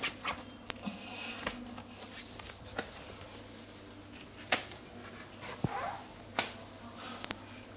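Cloth rustling and handling noise as a person's legs are moved and lifted on an exercise mat, with scattered sharp clicks and taps.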